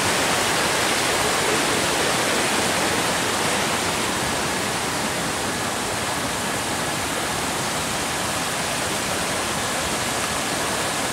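Fast-flowing mountain stream rushing over rocks and small weirs: a steady rush of white water.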